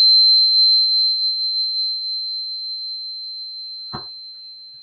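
Tuning fork ringing after being struck on a smooth, pink heart-shaped crystal: one high, pure tone that fades slowly. A faint knock about four seconds in.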